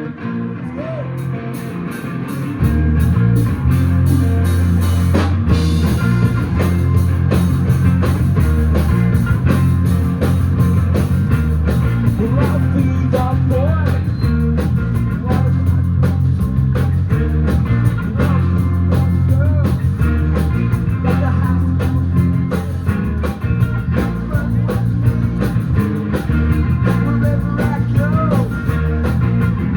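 Live rock band playing with electric guitars, bass and drum kit: a lighter opening, then bass and drums come in about two and a half seconds in and the full band plays on loud at a steady beat.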